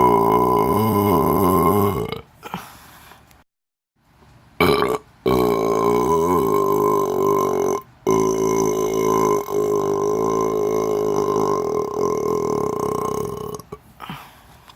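Long, drawn-out human burps. One ends about two seconds in, and after a short pause another starts and runs on at a steady pitch for about nine seconds before fading near the end.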